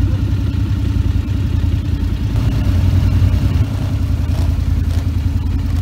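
ATV (quad) engine running steadily while riding, heard up close from the machine, with an even, low pulsing drone.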